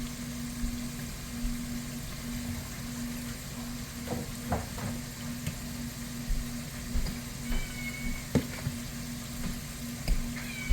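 Battered walleye pieces frying in hot oil in a pan: a steady sizzle with a low hum underneath, broken by a few light knocks of utensils against the pan.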